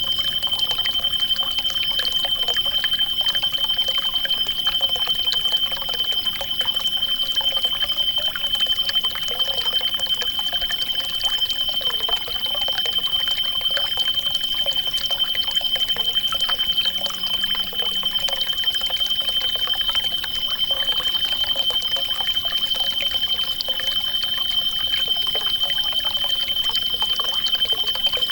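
Outdoor nature soundscape of steadily trickling water, with a continuous high-pitched tone and fainter warbling sounds over it.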